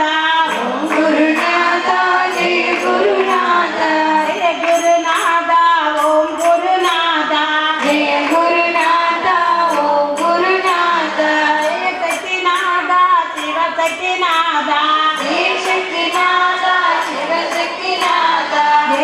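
A group of women singing a Tamil devotional bhajan in unison, as a continuous melodic chant. Light rhythmic ticks keep time under the voices.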